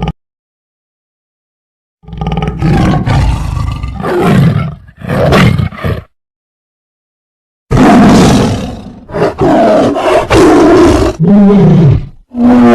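A large animal roaring loudly in two runs of several calls each, with a complete silence of about a second and a half between them. Near the end some of the roars hold a deeper pitched tone that falls away.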